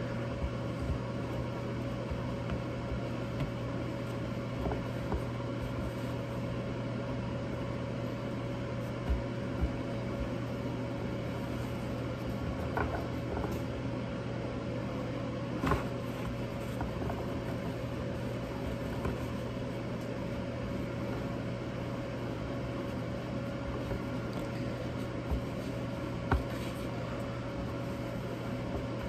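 Steady hum of a running appliance, a low drone with a fainter higher tone above it, with a few soft knocks and taps now and then as pizza dough is worked by hand on a counter.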